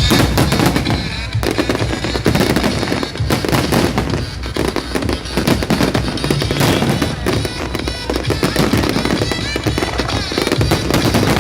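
Fireworks bursting and crackling in quick, overlapping succession, over loud music played with the display.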